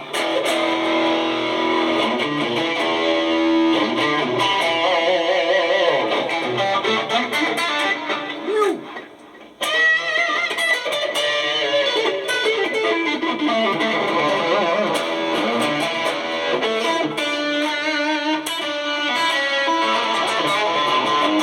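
Red Stratocaster-style electric guitar being played, mostly single-note lead lines with string bends and vibrato. It pauses briefly about nine seconds in, then carries on.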